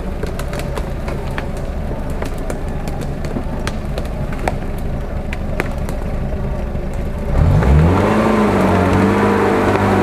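UAZ-469 off-roader's engine running at low revs as it crawls through the forest, with scattered sharp clicks; about seven seconds in it revs up, the pitch rising and then holding higher and louder as the vehicle comes past.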